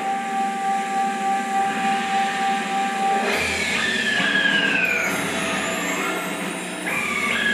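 Puppet-show stage soundtrack: a held note, then a steady hiss with falling whistle-like tones, twice.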